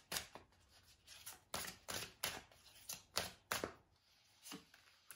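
A deck of oracle cards shuffled by hand: a dozen or so soft, irregular card slaps and riffles, with a short pause near the end.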